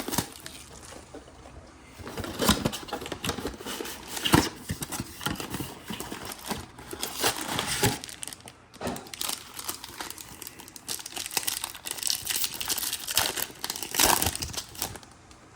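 Plastic foil wrapper of a Chronicles football trading-card pack being torn open and crinkled: irregular rustles and crackles, with the sharpest crackles about four seconds in and again near the end.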